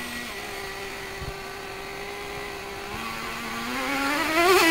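Small high-revving nitro engine of a T-Maxx RC monster truck, running at a steady whine, then revving up in a smooth rising pitch over the last second or so.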